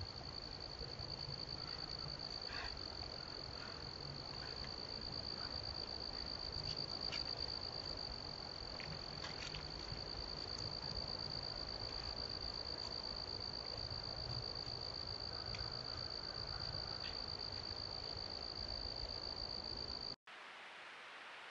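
Crickets trilling steadily in one continuous high-pitched chirr over a low rumbling background. Near the end it cuts off abruptly, and a plain hiss takes its place.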